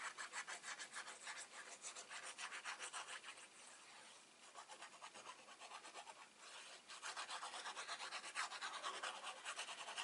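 Fine-tip nozzle of a liquid glue bottle scratching across cardstock as glue is drawn on in quick zigzag lines: a fast, faint run of scratchy strokes that eases off about halfway through, then picks up again.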